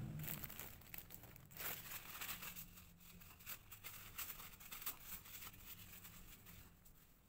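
Faint rustling and crinkling of paper towels being handled: a run of small dry crackles that thins out near the end.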